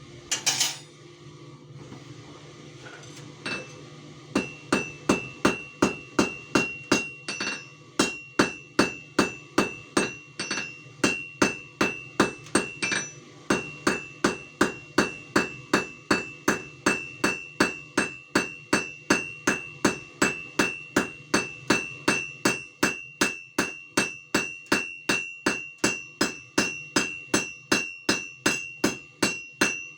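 Blacksmith's hammer striking metal on an anvil, forging a leaf: one sharp clink near the start, then from a few seconds in a steady run of blows at about two a second, each leaving the anvil ringing with a high tone.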